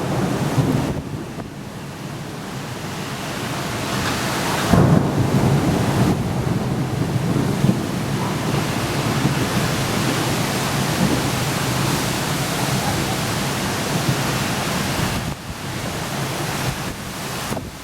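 Thunderstorm with heavy rain and squall wind: a steady rush of rain and wind under a low rumble. The rumble swells sharply about five seconds in and eases off near the end.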